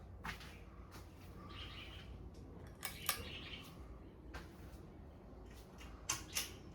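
Ceiling fan running with a steady low hum, over which come irregular sharp clicks and short chirpy squeaks, the loudest clicks in pairs about three seconds in and near the end.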